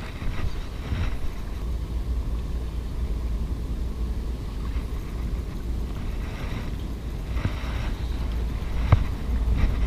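Wind buffeting the camera microphone: a steady low rumble, with one sharp click near the end.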